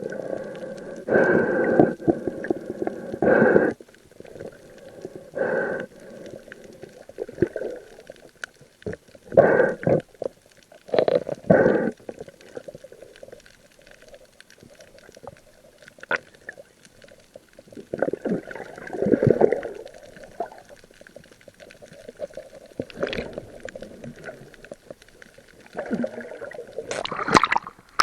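Muffled water sloshing and gurgling, as heard by a camera in the sea, coming in irregular surges a few seconds apart.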